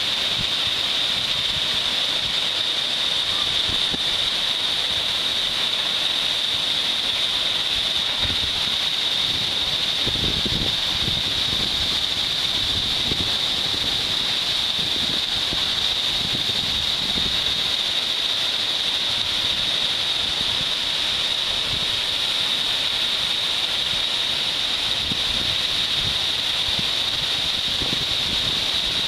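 A tall waterfall pouring down a rock face into a pool: a steady rush of falling water, with occasional faint low rumbles.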